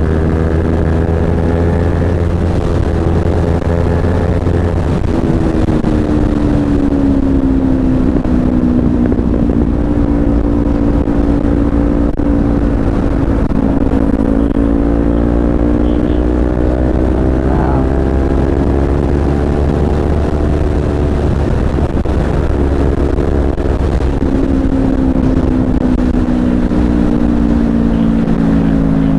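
Kawasaki Z250 parallel-twin engine running at cruising revs on the open road. Its pitch sags and climbs gently, with a brief jump about five seconds in, over a steady wind rumble on the microphone.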